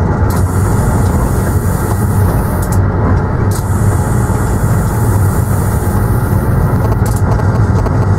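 Steady running noise of a moving train heard from the driver's cab, a continuous rumble with a constant low hum.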